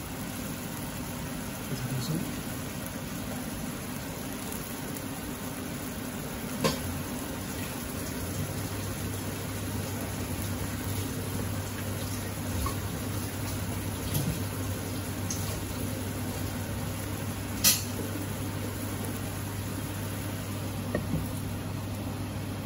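Spiced onion sauce simmering and sizzling in a pan on a gas hob, a steady bubbling hiss. A low steady hum joins about eight seconds in, and two sharp clicks sound, one about seven seconds in and a louder one about three-quarters of the way through.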